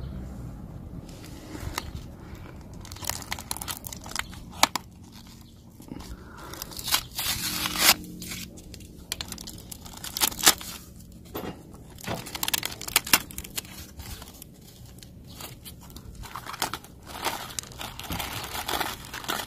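Crunchy objects being crushed under a car tyre: an irregular run of crackling and crunching, with several sharp, loud snaps.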